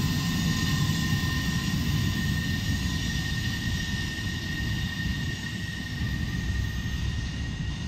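Freight train cars rolling away along the track: a steady low rumble. Over it runs a thin, steady high tone that stops near the end.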